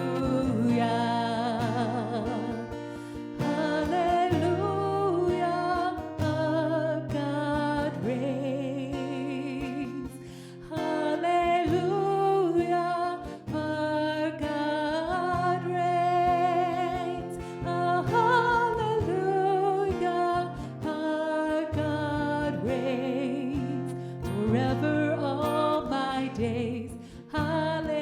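Contemporary worship song: sung melody with vibrato over acoustic guitar, in phrases with short breaks between them.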